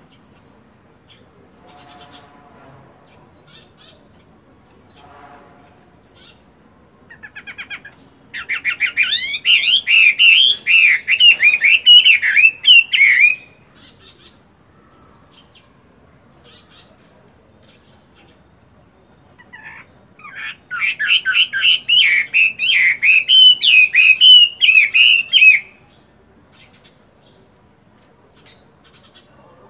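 Caged Chinese hwamei (melodious laughingthrush) giving short, sharp falling calls about every second and a half. Twice it breaks into loud, rapid, varied song of about five seconds each, once about a third of the way in and again past two-thirds.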